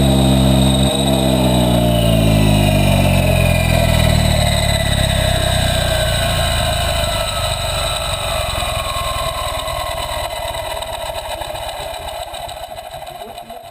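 Helicopter engine and rotor winding down: a falling whine and a throbbing hum that slow steadily and fade over the whole span, as when the helicopter is shut down.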